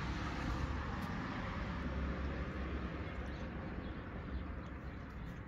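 Street traffic: the steady rumble and hiss of a passing vehicle, fading near the end.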